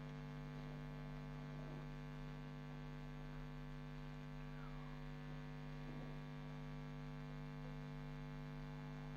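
Steady electrical mains hum, a low buzzing tone with many overtones, holding unchanged with nothing louder over it.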